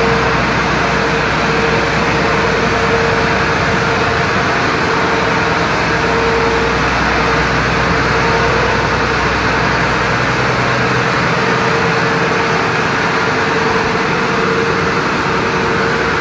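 A machine running steadily, with a constant hum over an even mechanical noise.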